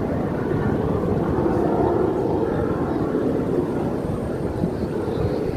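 Aircraft passing overhead: a steady engine noise that swells slightly about two seconds in, with wind on the microphone.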